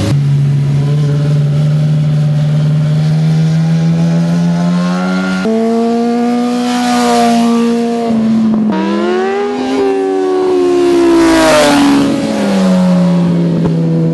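Sport motorcycle engines running hard under acceleration, their pitch climbing steadily with a few sudden jumps. The sound is loudest as a bike passes about eleven seconds in, and its pitch falls soon after.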